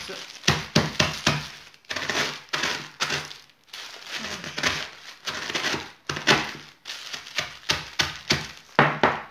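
Wooden rolling pin pounding and crushing dry bread slices on a wooden board: irregular knocks, about two a second, each with a crackling crunch of breaking bread.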